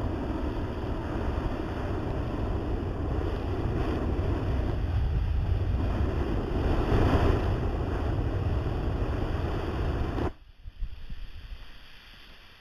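Flamethrower jet firing steadily onto snow with a continuous rushing roar. It cuts off abruptly about ten seconds in.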